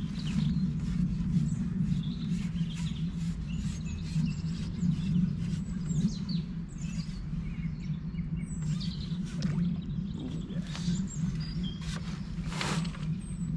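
Small birds chirping and calling again and again, over a steady low hum.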